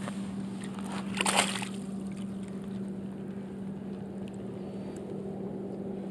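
A hooked largemouth bass splashing once at the surface in shallow water, a short splash about a second in, over a steady low hum.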